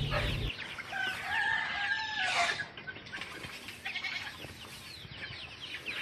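A brood of young chicks peeping continuously in many short, high, falling chirps, with a rooster crowing once for about a second and a half, starting about a second in.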